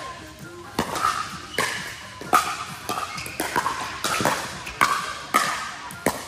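Pickleball paddles striking a hard plastic pickleball in a fast rally: about eight sharp pops, roughly one every 0.7 seconds, each ringing briefly and echoing in a large indoor hall.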